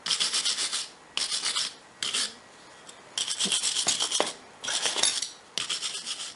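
A hand tool scraping over the steel of a freshly welded jackstand in about six strokes, each under a second long, with short pauses between them.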